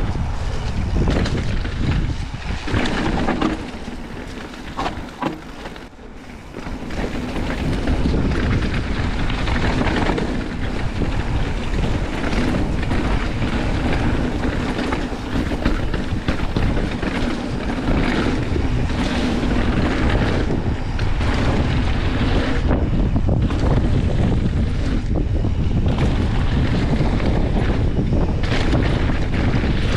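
Wind buffeting the action camera's microphone over the rumble of mountain bike tyres rolling on a dirt and gravel trail, with frequent knocks and rattles from the bike over bumps. It drops quieter for a couple of seconds about four seconds in, then picks up again.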